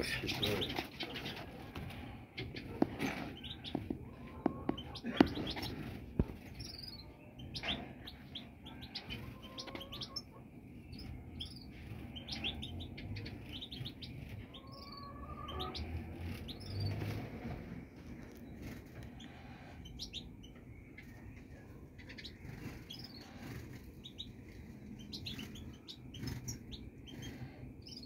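A mixed flock of small finches (European goldfinches, siskins and greenfinches) chirping and twittering in short scattered calls, with wing flutters as birds fly between perches. A few sharp knocks sound in the first six seconds.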